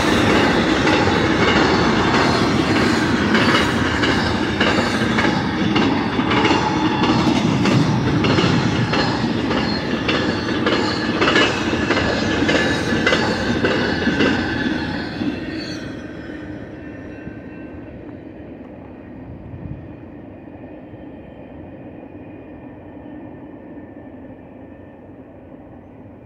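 Intermodal freight train passing at speed: the loud clatter of steel wheels on the rails, with regular clicks. The noise drops sharply about fifteen seconds in as the last car goes by, leaving a fainter, fading train sound.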